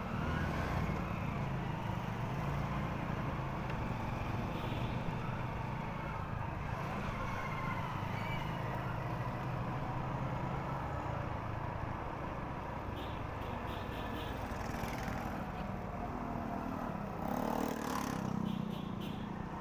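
A Honda motorcycle's engine running steadily while riding through busy city traffic, with the noise of surrounding cars, vans and motorbikes. A louder passing event comes near the end, with a few short high pulsing tones.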